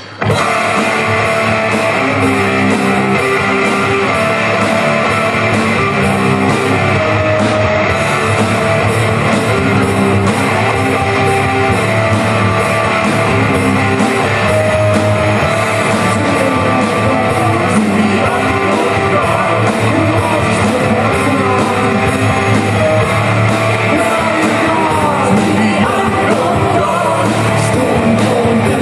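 Live band playing a rock-style song during a sound check, starting all at once at full volume with drums keeping a steady beat under sustained chords.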